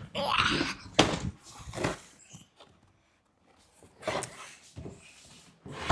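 Rustling and a few knocks as a cardboard toy box is handled and set aside, then a quiet pause and more faint handling ending in a sharp knock.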